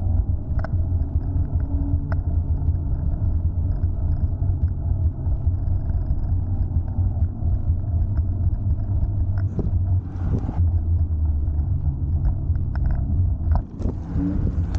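Wind buffeting the microphone while riding an electric scooter: a steady low rumble mixed with road noise, with a few light clicks.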